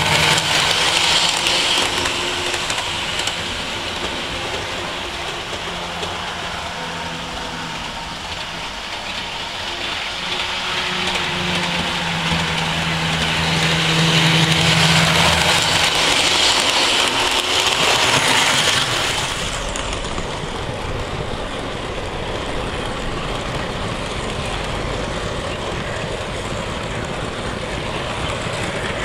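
Model diesel train running along the layout's track: a steady whirring hum from its electric motor with rolling wheel noise. It is loudest as it passes at the start and again in the middle, then settles into a steadier, lower rumble about two-thirds of the way in.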